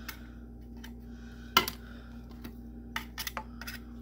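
Knife tip clicking against the blades and metal housing of a manual slap-press food chopper while prying out broccoli stuck in the blades: one sharp tap about a second and a half in, then a quick run of lighter clicks near the end.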